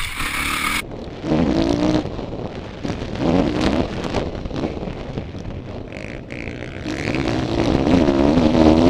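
Motocross bike engine revving up and falling back several times as the rider accelerates along the track. The pitch rises and drops in waves, with the loudest, longest rev near the end.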